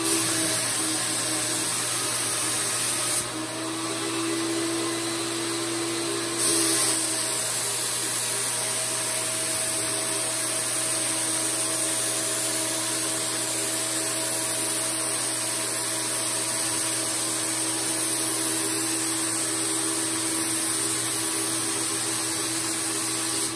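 Fuji Mini Mite 4 Platinum HVLP turbine running steadily, with the hiss of air and finish from the spray gun as a tray is sprayed. The hiss swells briefly a couple of times in the first seven seconds.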